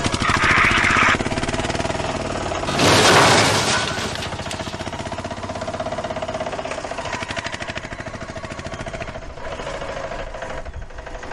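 A fast, steady mechanical rattle like a small engine running, with a louder noisy burst about three seconds in; the rattle fades a little toward the end.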